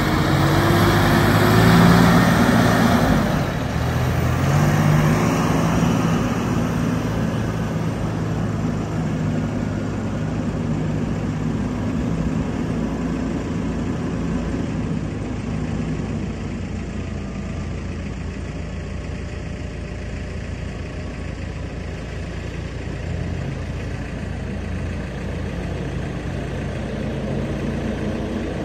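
John Deere 5075 tractor's diesel engine running as the tractor drives off, its note rising as it pulls away at the start, then growing fainter as it moves off and running steadily in the distance.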